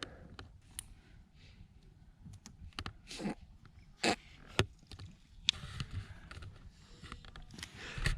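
Duct tape being pulled off the roll in several short rips, with small clicks and knocks of handling.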